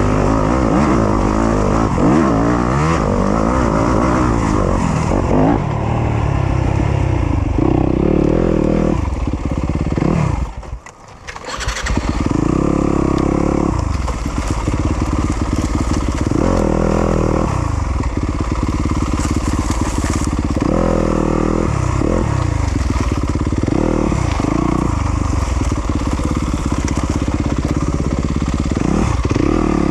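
Yamaha YZ250FX 250 cc four-stroke single-cylinder dirt bike engine revving up and down over and over under load. About eleven seconds in the engine sound drops away for a second or so, then picks up again.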